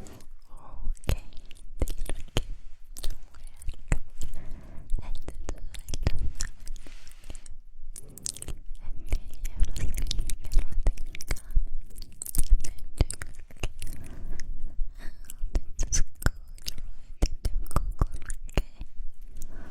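Close-miked ASMR mouth sounds: a dense, irregular run of wet clicks and smacks from the lips and tongue, with soft low thumps underneath.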